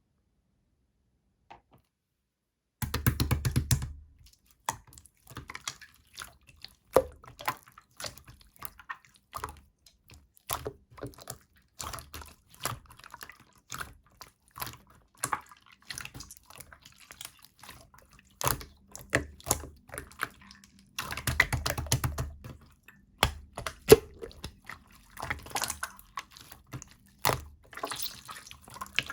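Two-layer slime, with clear and opaque layers, being squished, poked and folded by hand: sticky, wet clicks and pops. There are two runs of rapid crackling, one about three seconds in and another around twenty-one seconds.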